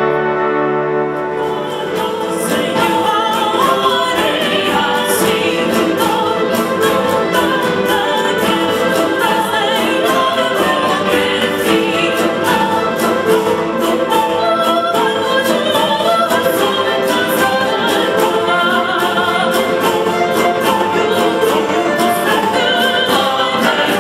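Wind orchestra and choir performing: a held wind chord gives way about a second and a half in to fuller music with singing over it and regular percussion strokes.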